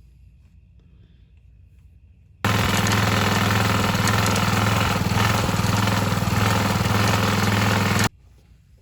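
A loud machine running steadily with a fast, even rhythm for about six seconds, starting suddenly and cutting off suddenly.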